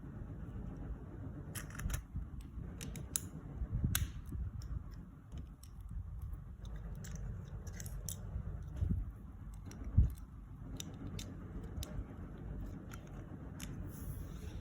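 Plastic Lego bricks clicking and being handled, with short sharp clicks scattered over a low rumble of hands on the pieces. A louder knock comes about ten seconds in.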